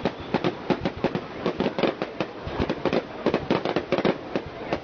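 Aerial fireworks bursting overhead: a rapid, irregular run of sharp bangs and pops, several a second.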